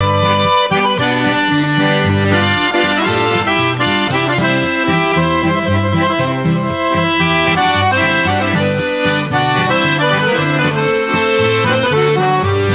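Accordion music: a lively tune of held chords and bass notes that change every fraction of a second at a steady level.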